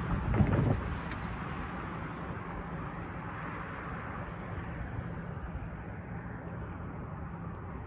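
Vehicle noise: a louder passing sound fades out about a second in, leaving a steady low rumble of motor traffic.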